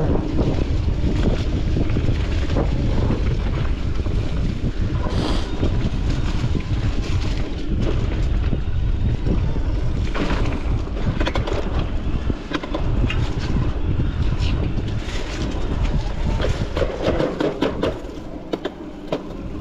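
Wind buffeting the microphone over the rumble of a mountain bike's tyres rolling along a dirt trail, with many short clicks and knocks from the bike running over roots and rocks.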